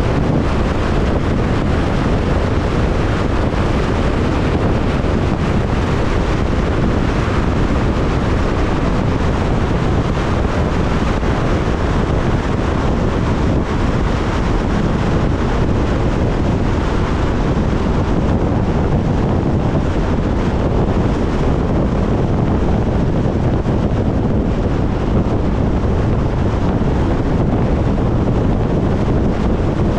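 Steady wind and road noise of a car driving at speed, with wind buffeting the microphone.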